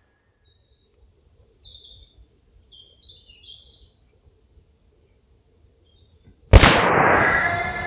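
Small birds chirping faintly, then about six and a half seconds in a single loud gunshot, followed by a long echo that slowly fades.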